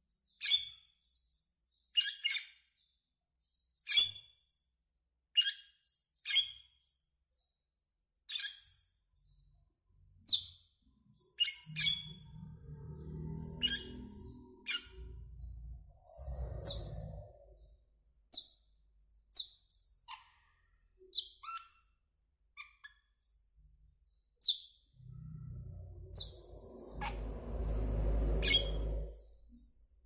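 Asian glossy starling giving short, sharp, high calls, each falling in pitch, repeated about once a second. A low rumble rises in the background twice, about a third of the way in and again near the end.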